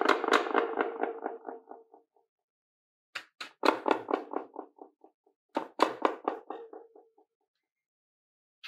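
Sharp hits near the MAGBOT V3T karaoke microphone, played back through its built-in speaker with echo turned up: each hit trails off in a fast train of repeating echoes over a ringing tone. One is dying away at the start, and two more come about three and five and a half seconds in.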